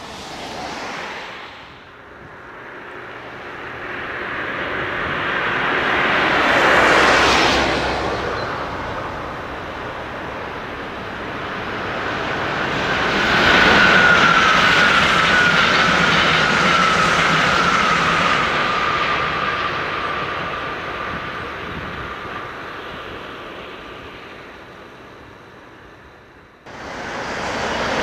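Shinkansen high-speed trains passing close at speed, each a rush of air and rail noise that swells and fades away. One pass peaks about seven seconds in with a downward sweep; a longer pass, a 500 series, swells from about thirteen seconds with a whine that slides slowly down in pitch. Near the end the sound jumps abruptly to another train's rush.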